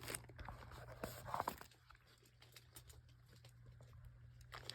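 Faint rustling and light clicks of tissue paper being handled during unwrapping, a little busier in the first second and a half, then mostly quiet.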